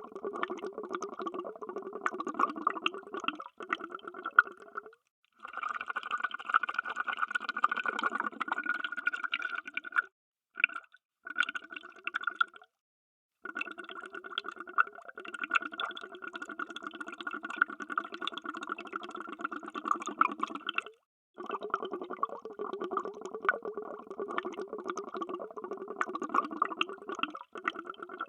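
Underwater bubbling: a dense, continuous stream of bubbles. It is broken by several abrupt, brief silences, around 5, 10, 13, 21 and 27 seconds in.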